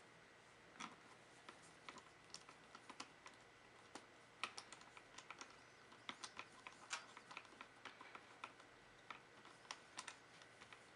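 Typing on a keyboard: irregular light key clicks, several a second with short pauses. Under them runs a faint steady high-pitched hum.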